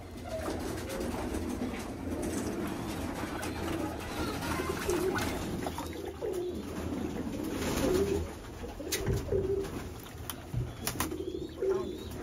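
Domestic pigeons cooing continuously, several birds overlapping, with a few short sharp clicks in between.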